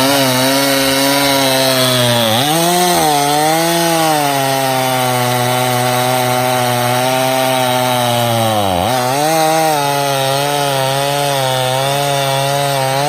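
Stihl chainsaw running at full throttle, cutting black locust. Its engine pitch dips sharply as it bogs in the cut about two seconds in and again near nine seconds, recovering each time, and starts to wind down at the very end.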